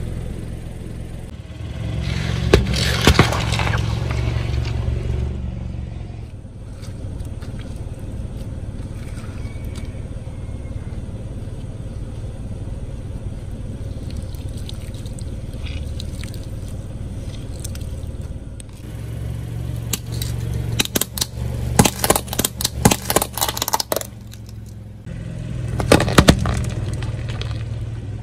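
A car's tyre rolling slowly over small objects with its engine running, plastic toys and candy packs cracking and crunching under it in quick clusters of sharp snaps. A quieter stretch in the middle has no engine.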